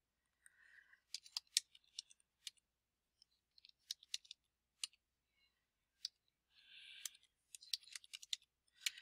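Faint, irregular clicking of computer keyboard keys as numbers are typed, mostly on the numeric keypad, with quick runs of key taps and short gaps between them.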